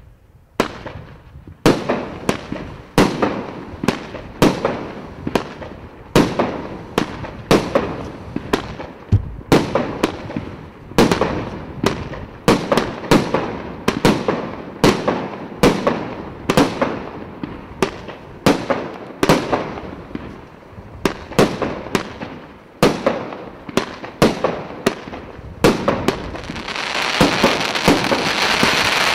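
Premier Salut "Polkovnik" 36-shot 1.25-inch consumer fireworks cake firing its shots one after another. Each is a sharp bang with a short echoing tail, about one every three quarters of a second. Near the end a dense, steady hiss rises under the last shots.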